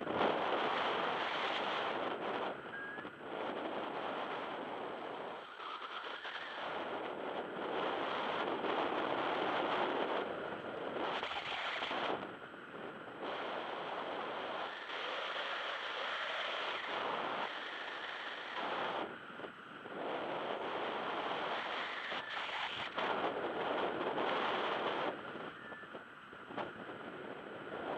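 Wind rushing over the microphone of a camera on a paraglider in flight: an even noise that swells and drops in gusts every few seconds.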